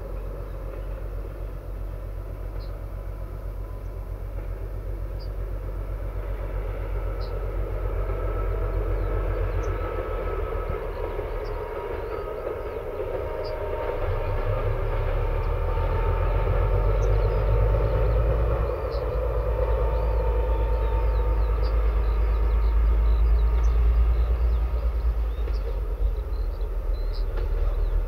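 ČD class 740 diesel locomotive hauling a wagon, its engine running with a steady low drone and higher tones above it, growing louder as it approaches. Birds chirp faintly in the background.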